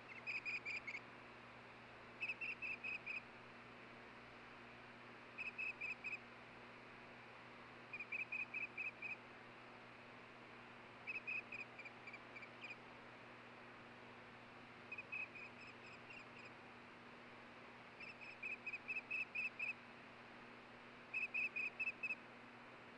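Osprey calling: eight runs of quick, high chirps, each run holding about five to eight notes and the runs coming every two to three seconds, over a faint steady hiss.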